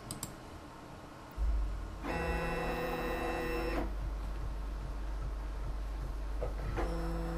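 Stepper motors of a homemade Arduino-controlled CNC router during an auto-level probe scan. About a second and a half in, a steady low hum starts. A pitched whine follows for about two seconds as the gantry moves to the scan's start corner, and a shorter whine near the end comes as the Z-axis moves the probe.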